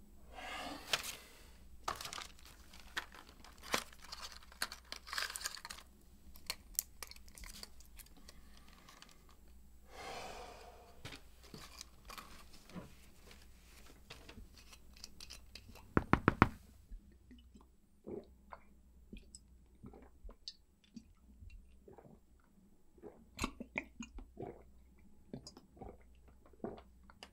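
Newspaper pages rustling and crinkling in several waves, with scattered small handling clicks. About sixteen seconds in there is a quick run of loud knocks.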